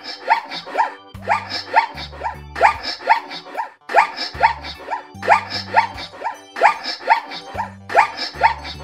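Zebra calling: quick rising, barking yelps in bouts, one bout after another, over background music with a low bass line.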